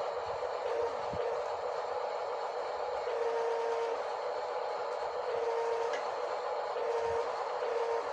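Small motor whirring steadily, with a hum that cuts in and out several times.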